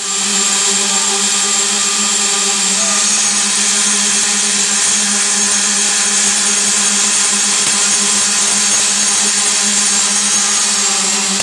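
Concrete roller screed paver running, its row of electric vibrator motors giving a steady, loud whirring hum with a strong hiss over it.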